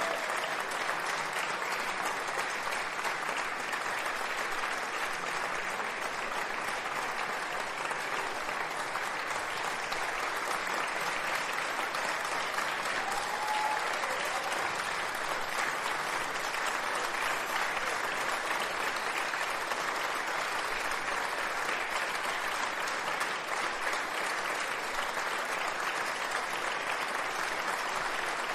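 Audience applauding, steady sustained clapping that holds at an even level throughout.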